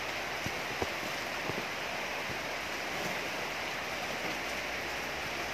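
Steady hiss of falling rain, with a few faint small clicks in the first couple of seconds.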